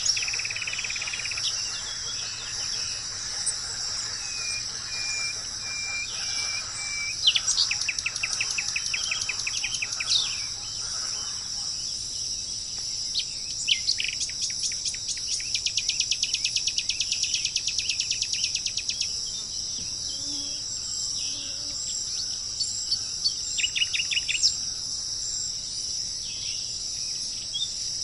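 Steady high-pitched insect drone with birds calling over it: a short run of repeated whistled notes, then fast trills of quick repeated notes, one running for several seconds, and scattered single calls.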